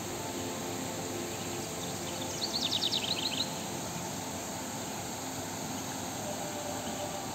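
Steady rushing of a stream cascading over flat rock slabs. About two and a half seconds in, a bird gives a quick run of high chirps lasting about a second.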